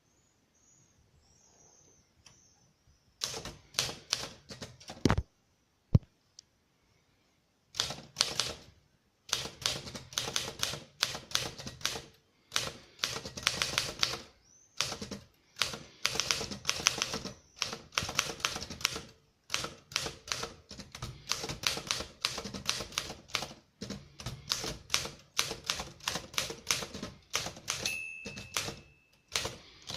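1956 Torpedo 18 manual typewriter being typed on: quiet at first, a few keystrokes and two sharp knocks about three to six seconds in, a short pause, then fast, steady runs of key strikes with brief gaps. A short ringing tone sounds near the end.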